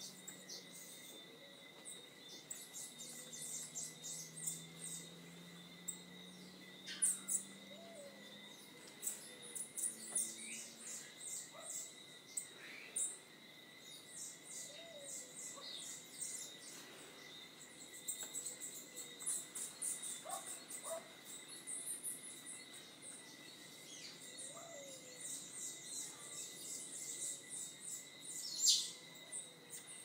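Morning bird chorus: several birds chirping and twittering in quick high notes, with occasional calls sliding down in pitch and a soft low note repeated every several seconds. Under it runs a steady high insect-like whine, and there is a faint low drone in the first third.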